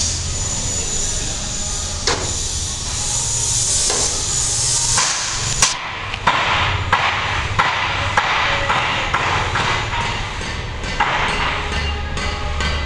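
Hammer blows on steel in a metal fabrication yard, irregular sharp clanks, some of them ringing. A loud hiss fills the first half and cuts off suddenly about six seconds in.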